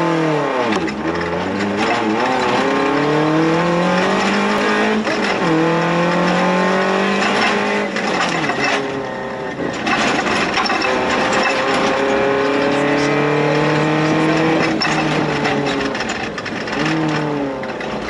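Suzuki Jimny's 1.3-litre 16-valve four-cylinder engine, heard from inside the cabin under hard acceleration. Its pitch climbs repeatedly and drops sharply at each gear change or lift, with a short easing off about nine seconds in, over a constant rush of tyre and gravel noise.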